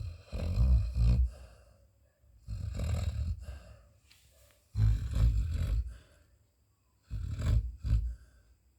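Sleeping Labrador retriever snoring: four snores about two seconds apart, each a little over a second long.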